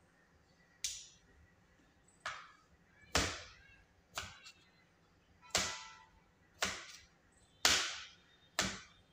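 Kitchen knife cutting pieces on a plate: about eight sharp clicks of the blade striking the plate, roughly one a second.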